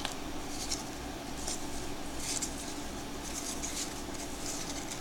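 Baseball cards sliding and rubbing against each other as a fanned stack is thumbed through by hand: soft scratchy swishes about once a second, over a steady low hum.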